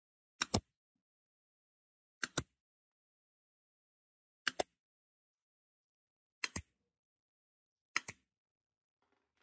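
Pneumatic F30 18-gauge brad nailer firing five times about every two seconds, each shot a sharp double click, driving brads into particleboard.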